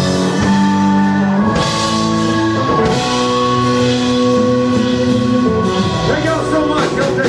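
Live rock band playing the closing bars of a song, with long held chords, drum hits and some singing.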